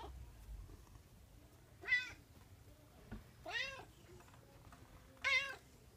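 Bengal cat giving three short meows, a second or two apart, each rising and falling in pitch. It is stroked while sexually aroused; the uploader says any touch in that state makes him cry in this odd way.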